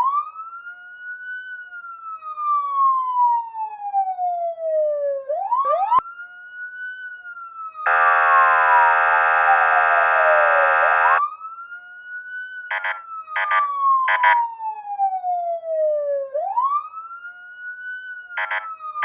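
Police car siren wailing, each cycle jumping up quickly and falling slowly, about every five seconds. A long buzzy horn blast cuts in about eight seconds in for some three seconds, followed later by short horn bursts, three in a row and then two more near the end.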